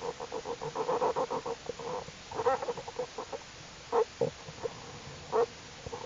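Newborn black bear cubs nursing, making the rapid pulsing "motoring" hum, about ten pulses a second. It breaks up after about two seconds into a few short, louder calls spaced a second or more apart. This motoring is the normal sound of cubs contentedly nursing.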